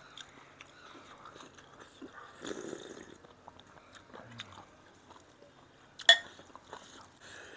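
Quiet eating sounds: chewing and rice being mixed by hand, with faint light clicks. About six seconds in, a single sharp clink of a porcelain spoon against a ceramic soup bowl.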